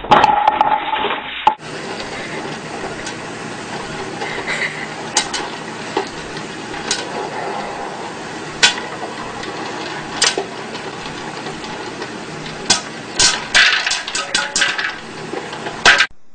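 Kitchen clatter: a clear bowl knocking and rattling against a pot in scattered sharp knocks, with a quick flurry of them near the end, over a steady hiss. It opens with a louder clatter lasting about a second and a half.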